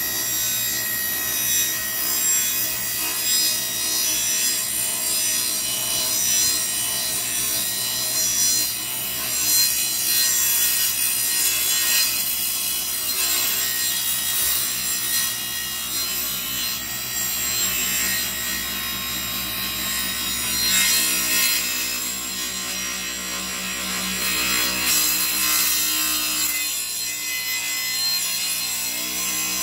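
Cabinet table saw running steadily as its blade cuts lengthwise through a 15-inch Cobra 1.62 rubber snowmobile track. The cut makes a continuous high hissing rasp over the saw's motor hum.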